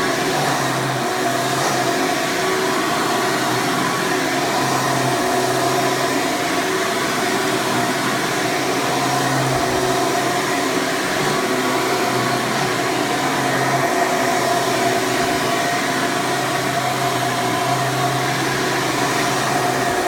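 A 2001 Hoover Preferred upright vacuum, model U5093-940, with its 12-amp direct-air motor running steadily and pretty noisy while it cleans carpet with its wood brush roll.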